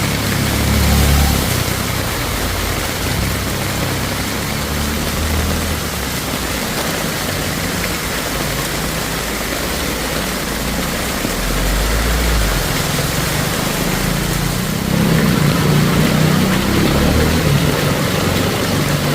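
Steady hiss of heavy rain and water, with motor vehicle engines running slowly close by; the low rumble grows a little louder about three-quarters of the way through.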